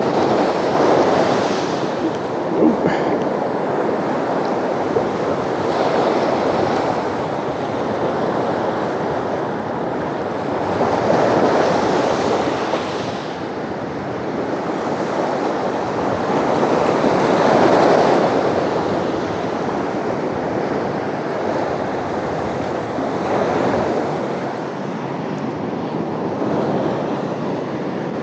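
Ocean surf breaking on a beach, the waves swelling and washing in about every five to six seconds.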